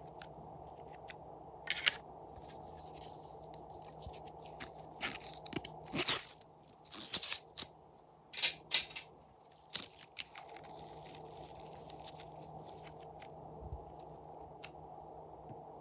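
Slime being worked by hand, giving a cluster of crisp crackles and crunches in the middle, with scattered small clicks before and after.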